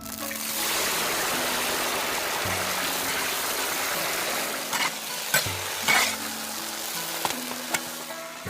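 Food frying in hot oil: a loud sizzle that starts suddenly, as if food has just gone into the pan, then settles to a steadier sizzle. There are a few sharp clicks of a utensil in the pan partway through.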